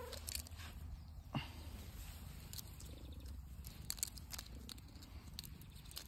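Long-haired tabby cat purring steadily in a low, rapid rumble, with a few short clicks and rustles over it.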